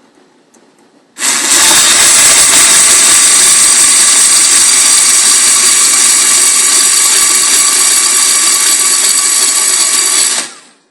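Electric screwdriver running steadily for about nine seconds, driving a screw into the door to fix the peephole bracket; it starts about a second in and stops just before the end.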